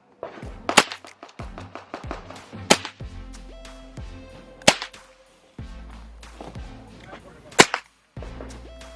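Four single gunshots at a firing range, each a sharp crack, fired one at a time a couple of seconds apart, over background music.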